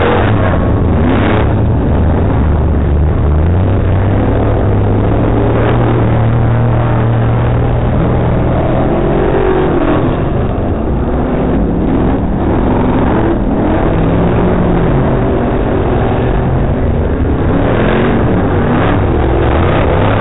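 Race car engines running hard on a snow-covered ice track, a steady drone at first and then the pitch rising and falling several times as the cars rev through their slides.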